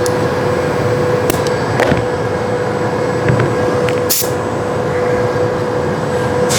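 Steady hum of running machinery carrying a held tone, with a few light metallic clicks and a short sharp hiss about four seconds in.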